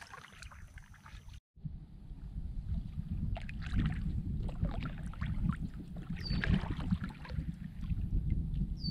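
Water lapping and splashing around a kayak under a low rumble of wind on the microphone, with a brief dropout about a second and a half in. A bird gives a short falling chirp twice, around six seconds in and near the end.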